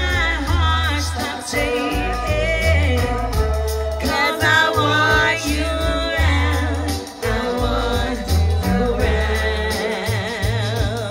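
A song with a lead singer's voice, pitch wavering with vibrato, over a deep, pulsing bass line.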